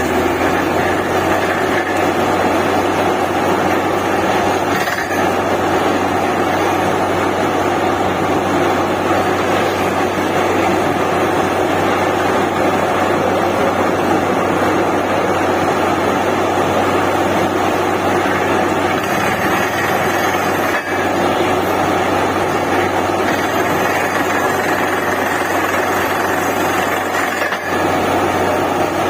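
Borewell drilling rig running steadily under load, its engine and machinery making a constant loud noise with a low hum.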